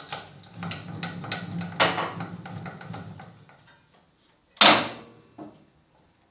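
Clunks and rattles from inside a sliding panel saw as the blade cover and blade area are handled: a few seconds of low rattling with clicks, then one loud sharp clack about four and a half seconds in, followed by a lighter knock.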